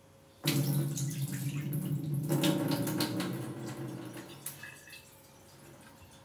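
Water running from a kitchen tap into a cooking pot holding rice for congee. It starts suddenly about half a second in and eases off around four seconds in.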